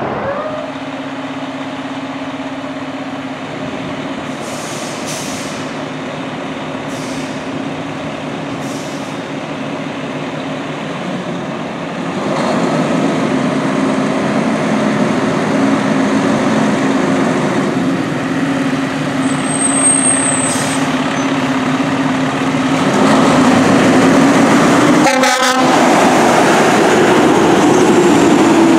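Pierce fire truck on an emergency response: a steady low tone over engine and road noise that gets louder about halfway through and again near the end, the tone's pitch bending in the last few seconds as the rig comes close.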